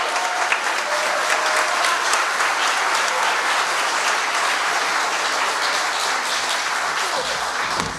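Audience applauding, a dense steady clapping that dies down at the end.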